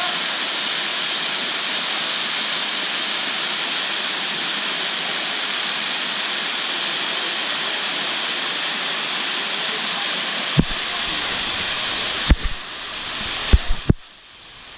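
Waterfall rushing in a steady roar of white water. Near the end come several sharp low thumps, and the rush falls quieter for a moment.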